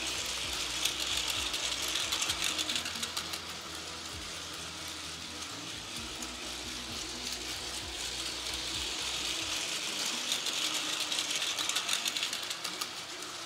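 Battery-powered Plarail toy train (Train Suite Shiki-shima) running on plastic track: the small motor's gear whirr with rapid clicking. It grows louder twice as the train passes close by, about a second in and again near the end.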